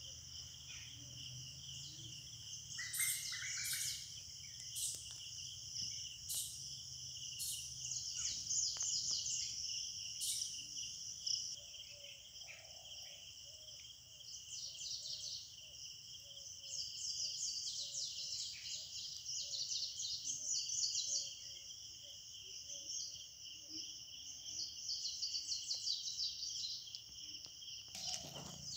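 Forest morning chorus: many birds chirping and trilling over a steady drone of insects.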